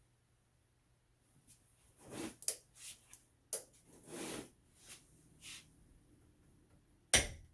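Torque wrench being worked on a torque testing meter: a run of short knocks and rattles for a few seconds, then one loud, sharp knock near the end.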